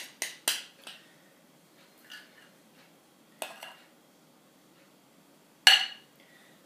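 A spoon clinking and scraping against a mixing bowl as cake batter is scraped out into a loaf pan. Several short clicks come in the first second, another few about three and a half seconds in, and the loudest sharp knock comes near the end.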